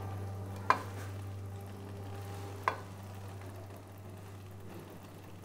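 Paneer cubes being dropped by hand into a steel pot of cooked spinach gravy on the stove, with two sharp clinks about two seconds apart over a steady low hum.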